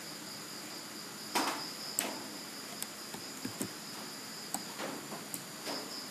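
Computer mouse clicking about eight times at irregular intervals, with a steady high-pitched whine underneath.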